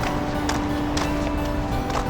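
Intro music with sustained tones over a steady beat, about two beats a second.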